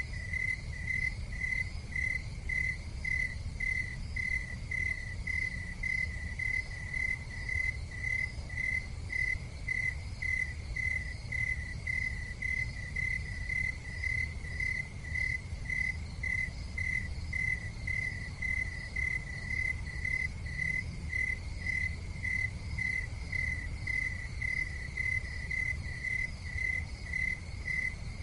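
Crickets chirping steadily: an even, high-pitched chirp repeated about three times a second, over a faint low rumble.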